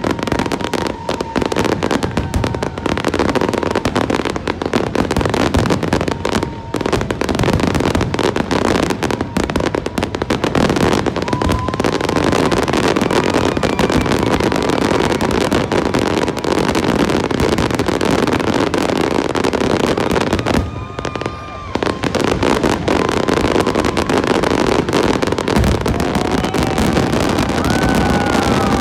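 Fireworks display: a dense, continuous barrage of bangs and crackles, with a brief lull about three quarters of the way through.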